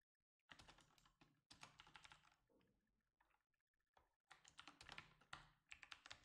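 Faint typing on a computer keyboard: keys clicking in short runs with pauses between.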